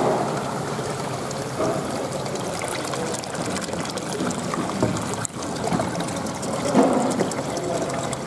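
Seawater churning and bubbling in a live-fish holding tank, foamy from the aeration, with a few louder splashing surges.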